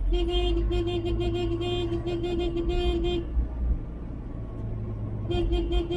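Vehicle horn tooting in a rapid string of short blasts for about three seconds, then another short string near the end, over the low drone of the moving vehicle.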